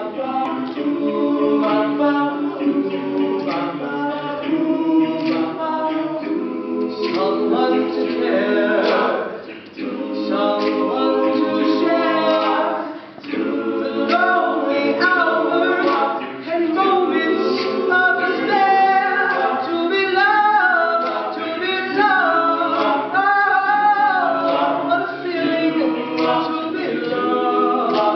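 A collegiate a cappella group singing layered voices in chords with no instruments. The singing dips briefly twice, between phrases.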